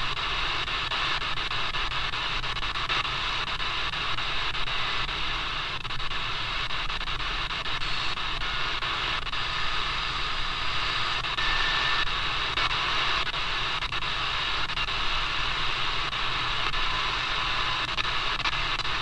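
Shortwave static hissing from the QFX R-35 portable radio's small speaker as it is tuned between stations, with a few brief faint whistles passing by about halfway through.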